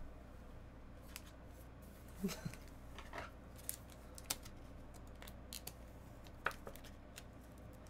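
Quiet room tone with a handful of faint, short clicks and taps scattered through it.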